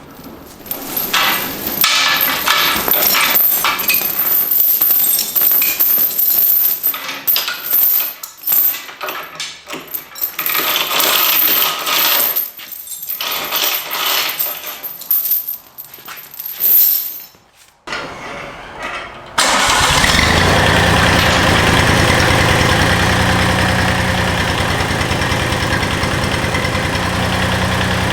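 Irregular clanking and knocking of handling work, then about two-thirds of the way in a lawn tractor's engine starts and runs steadily.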